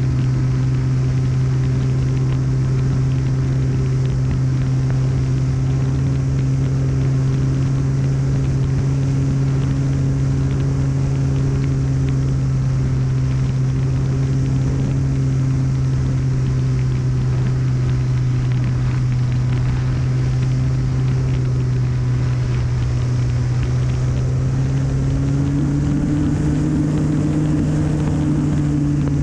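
Sunnysky 2216 1400kv brushless electric motor and propeller of an RC model airplane in flight, a steady buzzing drone picked up on board with wind rushing past. Its pitch steps up slightly near the end.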